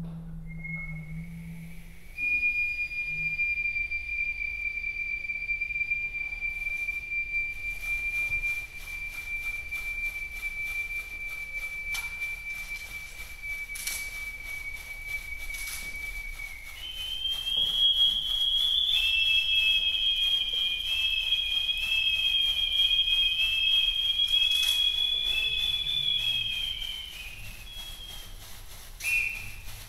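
Small duct flutes (flautas de pico) played: one holds a single high whistle tone for about sixteen seconds, then a second, higher whistle joins and the two sound together with a wavering, beating pitch for about ten seconds, followed by a few short notes near the end. A shaken bundle of dry leaves rustles faintly underneath.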